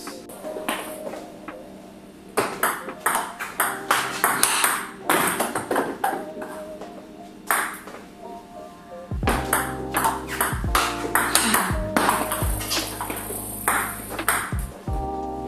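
Table tennis counter-hit rally: the plastic ball clicks sharply off rackets faced with Tibhar Hybrid K3 rubber and off the table, in quick succession from about two seconds in. Background music plays throughout, and a bass line enters about nine seconds in.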